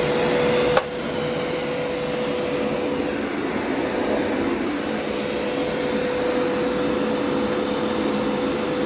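Hoover Power Scrub Elite carpet cleaner running, a steady motor whir with a steady hum through it. A sharp click comes about a second in, after which the sound is a little quieter.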